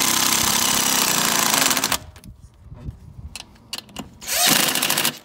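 Cordless impact driver with a socket on an extension, running in a long burst of about two seconds while driving bolts on an outboard's cowling. A few light clicks of the socket on the bolt follow, then a second short burst of under a second near the end.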